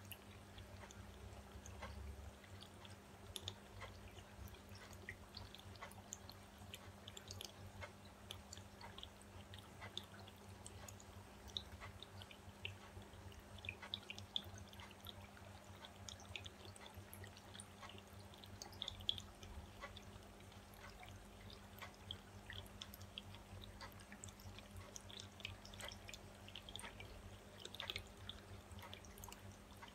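Faint scattered small clicks and wet ticks from acrylic paint being poured out of small plastic cups onto a canvas, over a steady low hum.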